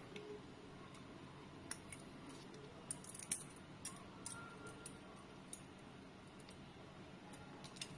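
Faint, irregular metallic clicks and taps of a stainless steel butterfly (balisong) comb being flipped in the hand, its handles knocking and the latch clicking, with the sharpest click about three seconds in.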